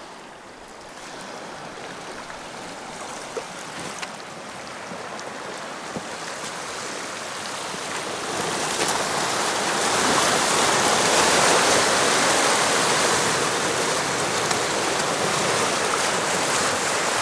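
Sea swell washing and breaking over a rock ledge: a steady rush of surf that grows louder over the first half, then stays loud.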